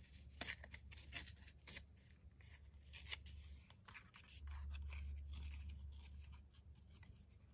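Paper being torn by hand in many short, small rips along its edge: faint crackling tears, with a low hum underneath that grows louder for a couple of seconds past the middle.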